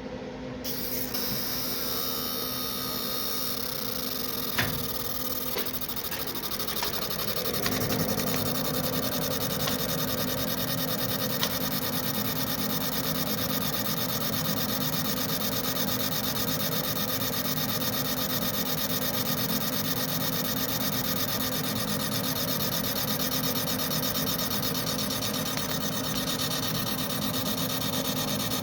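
Abrasive media blaster running steadily: a continuous hiss of grit with a motor hum underneath, stripping the old finish off Glock 21 parts before Cerakote. It gets louder about seven seconds in and holds there.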